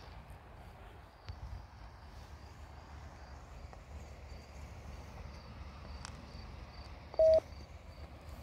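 Faint, steady insect chirping, a high note repeating about two to three times a second over a low outdoor rumble. A short, loud beep cuts in about seven seconds in.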